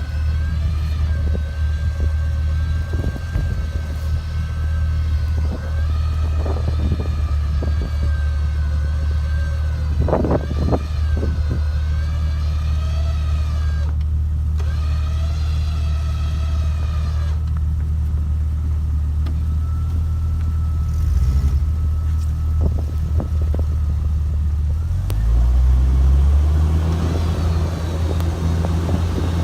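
A vehicle engine running steadily with a high, wavering whine over it, during a winch recovery of a Jeep in snow. About 25 seconds in the engine rises in pitch as it revs up.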